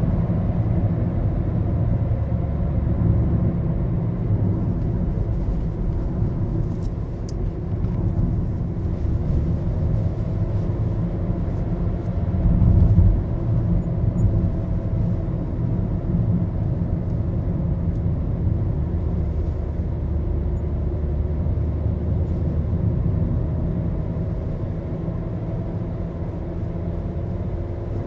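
Maruti Suzuki Baleno being driven, heard from inside the cabin: a steady low rumble of road and engine noise, with a faint engine tone that slowly rises and falls and a brief louder swell about twelve seconds in.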